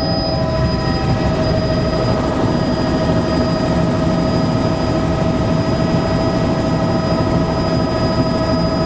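Helicopter in flight heard from inside the cabin: a loud, steady rotor and engine drone with a constant high whine over it.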